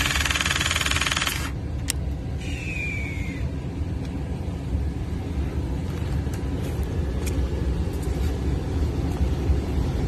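Battery-powered hydraulic crimping tool's pump running as it presses a Hyground compression connector onto a ground rod, cutting off abruptly about a second and a half in. A sharp click and a short falling whine follow, then a low steady rumble.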